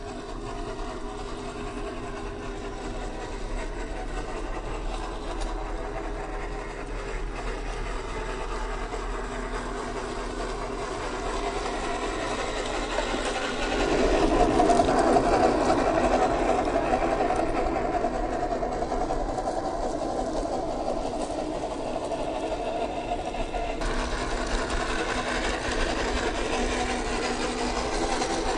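The small electric drive motor and gearbox of a 1/12-scale MN128 Jeep Rubicon RC crawler whining steadily as it drives over dirt and gravel. The whine gets abruptly louder about halfway through and changes again near the end.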